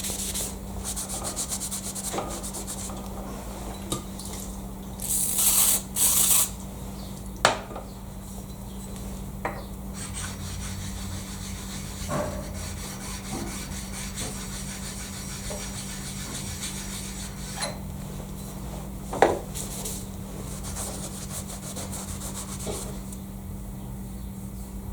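A sharpening stone rubbed lightly over a machined metal surface of a milling vice to smooth it. It scrapes quietly throughout, with two louder rasping passes about five to six seconds in and a few light knocks.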